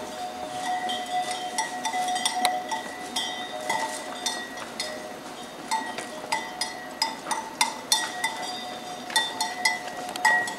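A bell on a cow's collar clanking irregularly as the cow walks, several strikes a second, its ringing tone lingering between strikes.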